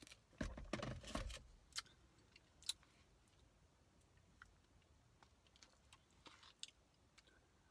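Quiet handling sounds of eating from a paper bowl with a plastic spoon: a rustle and bump about half a second to a second and a half in, then scattered light clicks of the spoon against the bowl, with a brief scrape a little after six seconds.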